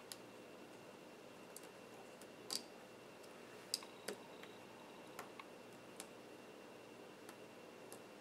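Light, scattered clicks and taps of small smartphone parts being handled during reassembly, about ten over several seconds, the loudest near the middle, over a faint steady hum.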